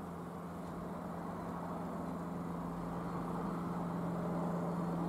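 Reims Cessna F172M Skyhawk's four-cylinder Lycoming piston engine and propeller droning overhead in cruise, a steady one-note hum that grows slowly louder as the plane comes nearer.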